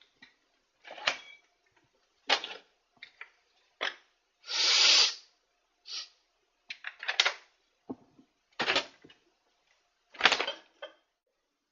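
A person sniffing hard through the nose again and again: about ten short, sharp sniffs and snorts, with one longer, louder drawn-out sniff about four and a half seconds in.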